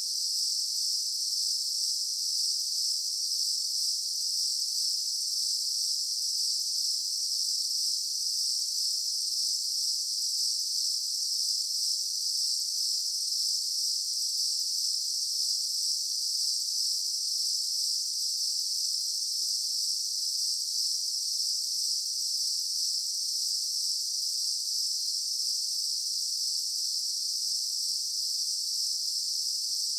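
Daytime insect chorus: a steady, dense high-pitched buzzing drone of many insects that does not change.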